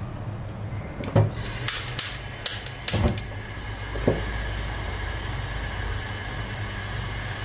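Gas stove burner being lit: a run of sharp igniter clicks, a soft low knock as the flame catches about three seconds in, then the flame burning with a steady low rumble.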